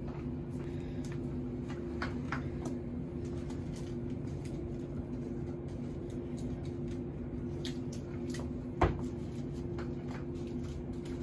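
Silver British Shorthair kitten purring steadily, a continuous low rumble. One sharp knock about nine seconds in.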